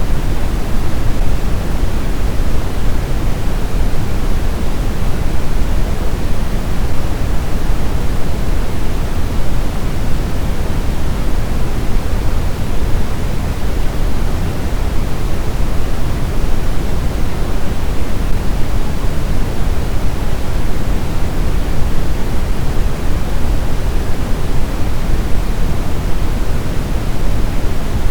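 Steady, loud pink-type noise, with most of its weight in the low end, unchanging throughout.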